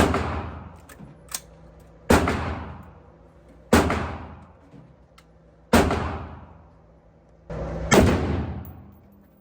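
Colt AR-15 rifle fired in single shots: five loud shots about two seconds apart, each ringing out for a second or so before the next.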